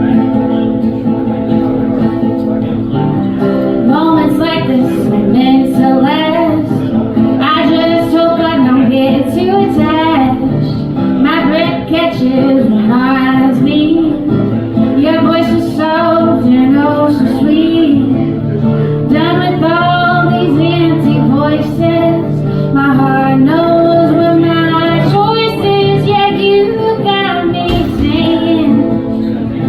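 A woman singing an original pop-folk song over strummed acoustic guitar; the guitar plays alone at first and the voice comes in about four seconds in, singing in phrases.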